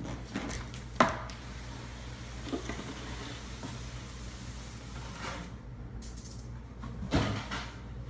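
Large cardboard box being handled and opened: faint rustling, a sharp knock about a second in and a duller thump near the end, over a steady low hum.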